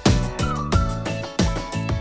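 Background music with a steady beat: sharp regular drum hits under held melodic notes, one of them a bending high tone.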